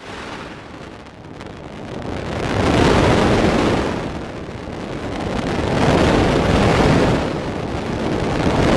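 Rushing, roaring noise that swells and fades in slow waves, peaking every three to four seconds, like surf. It is a space recording turned into audio.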